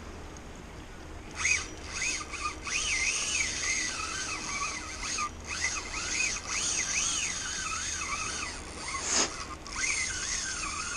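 Fishing reel whirring as line runs through it, its whine rising and falling in pitch about once or twice a second over a hiss, with a sharp louder burst near the end.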